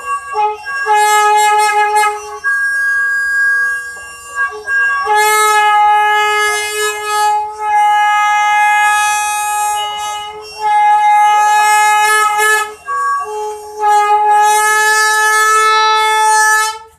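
Indonesian 'telolet' musical horn playing a tune: loud held reedy notes, several tones sounding together, stepping from note to note with short breaks, then cutting off suddenly at the end.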